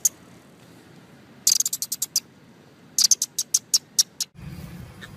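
Squirrel-style chattering: two runs of rapid, high-pitched clicks, a second or so apart. Near the end it cuts suddenly to a low rumble.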